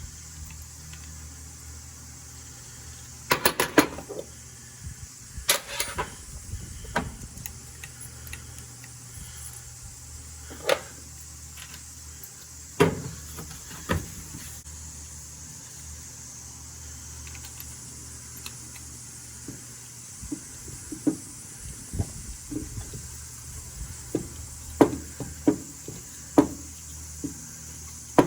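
Scattered sharp clicks and knocks of metal hand tools and engine parts being handled during spark plug work. There is a quick rattling cluster a few seconds in, and a run of small clicks near the end, over a steady low hum.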